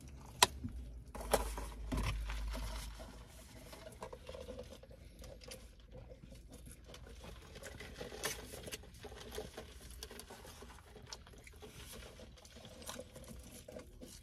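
Quiet eating and handling noises: scattered small clicks and rustles from food, wrappers and a plastic-lidded fast-food drink cup being handled, with a low bump a second or two in.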